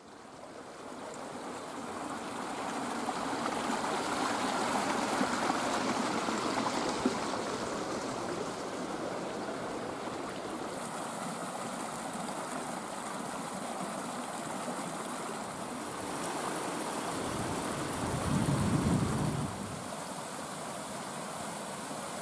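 Small woodland brook rushing and splashing over rocks and down a little cascade, a steady rush of water that fades in at the start. A brief louder low rumble comes about three-quarters of the way through.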